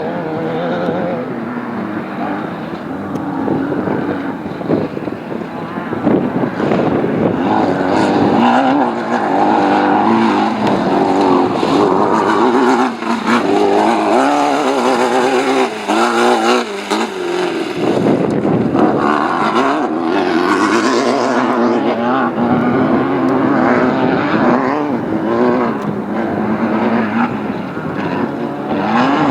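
Off-road race car engine running hard, revving up and down continually, its pitch rising and falling with the throttle.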